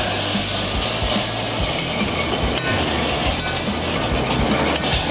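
Cold milk hitting a hot butter-and-flour roux in a stainless steel saucepan and sizzling, while a utensil stirs and scrapes the pan. The milk is being added a little at a time to start a white sauce. The sizzling hiss runs steadily, with short scraping ticks throughout.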